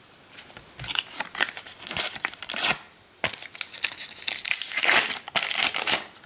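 Paper wrapper of a Panini sticker packet being torn open and crumpled in repeated crinkling bursts, with a short pause about three seconds in.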